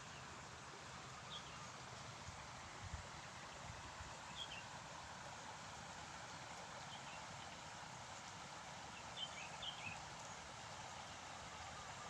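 Faint, steady rush of a flowing river, with a few short bird chirps every few seconds.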